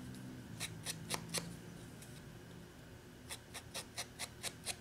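Quick light taps of a foam sponge dauber dabbing ink onto the edges of a cardstock label, a few at first, a pause, then a steady run of about four a second.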